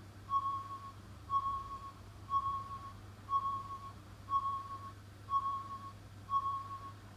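Pachinko machine's speaker giving a short, even electronic beep about once a second, eight times in a row: a timing cue during its button-press event, as the player waits for the start mark to press the chance button.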